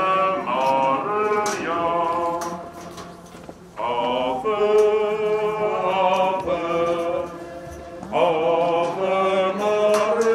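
Hymn singing: a lead voice sings a melody in phrases of about four seconds each, with a low steady tone held beneath.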